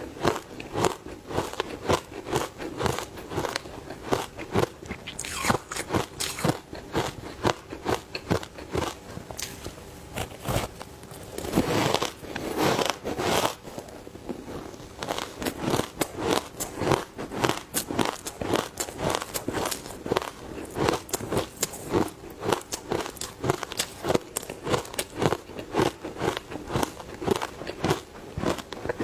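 Ice coated in matcha powder being bitten and chewed close to the microphone: a rapid, continuous run of crisp crunches and crackles, thickening into a denser grinding crunch about 12 seconds in.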